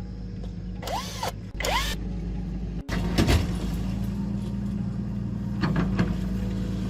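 Diesel engine running steadily with a low, even drone, with a few metallic clicks and knocks over it after about three seconds.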